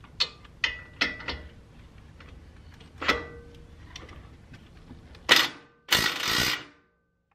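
Metal hand tools clinking against the brake and suspension parts: several sharp clinks with a brief ring, then a sharp hit and a loud rasping burst just under a second long near the end, as a socket wrench works on the 17 mm caliper bolts.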